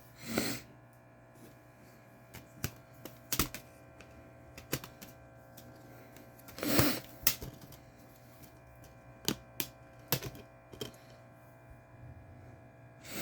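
Clear plastic Blu-ray case and its discs and inserts being handled: scattered clicks and taps, with two short rustles, one at the start and a louder one about seven seconds in.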